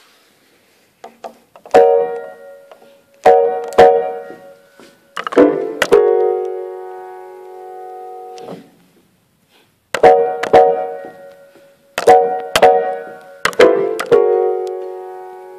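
Steinway grand piano playing a short phrase of chords struck in quick pairs, the last chord held and left to ring for a couple of seconds. After a pause of about a second and a half, the same phrase is played again.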